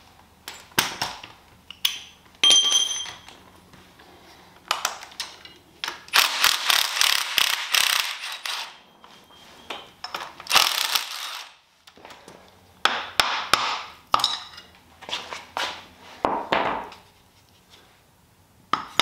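Cordless impact driver hammering out the water pump bolts on a 1937 Ford flathead V8, in two bursts of a second or two, about six and ten seconds in, with clanks of metal parts and tools being handled before and after.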